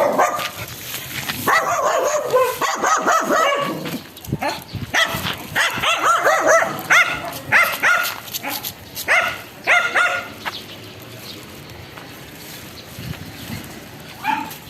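Dog barking and yipping repeatedly in short, high calls, the barking dying away about ten seconds in.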